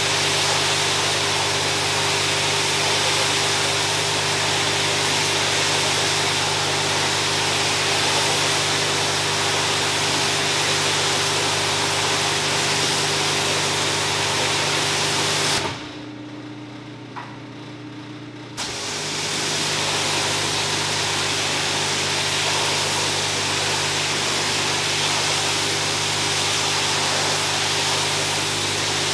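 Pressure washer spraying water onto a soapy rug: a steady hiss of spray over the hum of the pump. A little past halfway the spray stops for about three seconds, the pump's hum changing, then the spray starts again.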